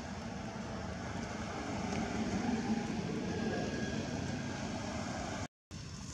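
Small motorcycle engine idling steadily, slightly louder about two to three seconds in. The sound drops out briefly near the end.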